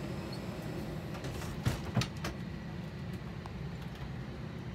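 Steady low hum inside an airliner cabin on the ground before departure, with two sharp knocks close together about two seconds in.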